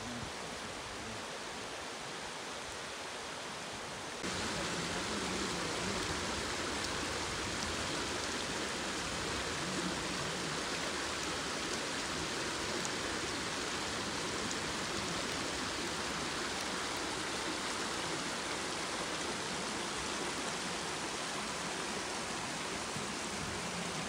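Swollen, fast-flowing stream rushing with a steady wash of water noise. About four seconds in it jumps to a louder, brighter rush, which then holds steady.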